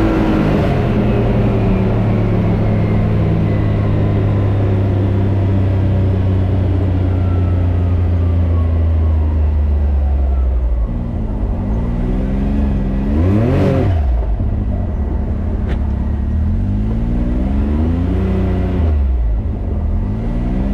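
Can-Am Maverick X3 Turbo RR's turbocharged three-cylinder engine running steadily, then revving up and down repeatedly from about halfway through, with one sharp rev a little after that.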